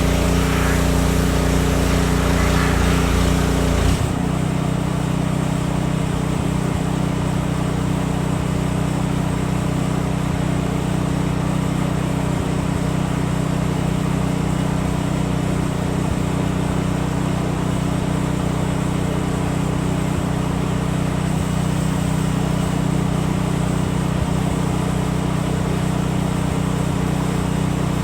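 A steady engine-like motor hum under a rushing noise. About four seconds in, the deep rumble and the rushing drop away suddenly, leaving the hum.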